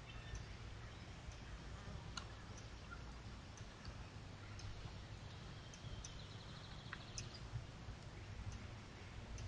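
Quiet outdoor ambience from a trail camera's microphone: faint scattered clicks and ticks over a steady low hum, with a brief faint buzzy trill about seven seconds in.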